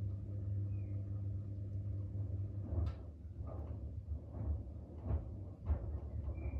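Front-loading washing machine mid-wash: a steady motor hum for the first couple of seconds, then the hum drops away and irregular thuds and knocks of the drum and laundry tumbling take over.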